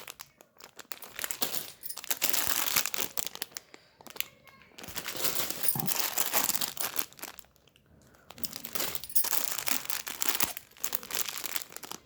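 Packaging crinkling and rustling as new jewellery pieces are unpacked and handled, in three long stretches with brief pauses between them.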